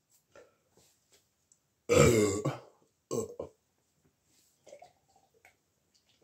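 A loud, deep burp from a person who has been chugging cans of cola, about two seconds in, followed a second later by a shorter two-part burp.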